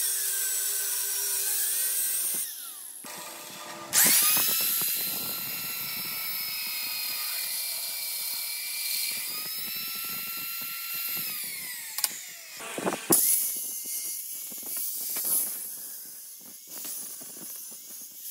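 An angle grinder cuts steel with a high whine. A drill press motor then drills through a steel plate, its whine steady until it winds down. The grinder cuts a steel flat bar near the end.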